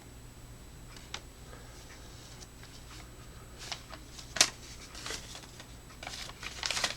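Hands handling a small cardboard flashlight box and its packaging: faint rustling and scraping with a few sharp clicks, the loudest about four and a half seconds in, and a flurry of rustling near the end.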